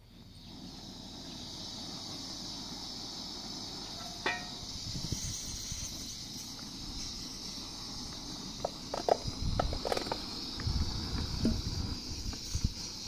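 Small bottled-gas burner hissing steadily once lit, with a low rumble under it. About four seconds in there is a sharp clink, and in the last few seconds an aluminium pot knocks and fruit clatters as it is tipped into the pot.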